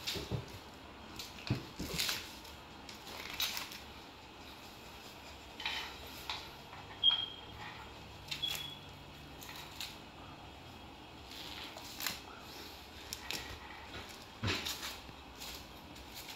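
Plastic wrap being peeled and pulled off a foam tray of raw chicken drumsticks, crinkling and crackling in short, irregular spells. A brief high squeak comes about seven seconds in, the loudest sound, and another shortly after.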